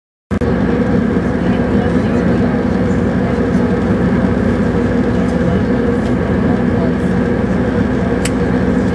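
Airliner cabin noise in cruise flight: the steady drone of the jet engines and rushing airflow, heard from a window seat inside the cabin. It cuts in abruptly about a third of a second in, with a faint click near the end.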